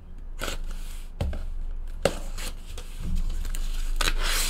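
Cardboard handling: a few light knocks and scrapes as a sealed trading-card case is opened. Near the end comes a longer hissing tear or scrape of cardboard as a box is drawn out of it.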